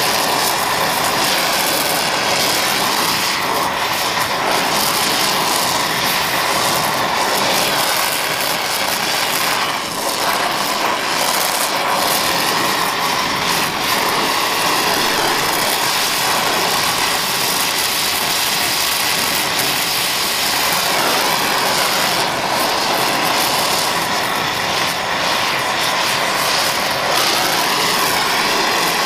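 Oxy-fuel torch flame hissing steadily while it heats cast iron red-hot for a bronze braze.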